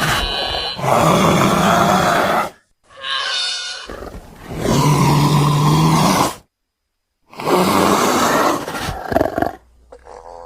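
Creature sound effect for an Acrophoca (swan-necked seal): a run of about four loud growling roars, each lasting a second or two, split by short silent gaps, with the longest gap a little past the middle.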